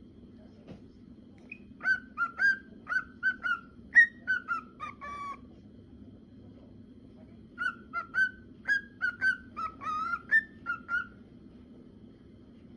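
Male cockatiel whistling its song in two phrases of short, quick whistled notes: the first about two seconds in, the second after a pause of about two seconds. A faint steady hum lies underneath.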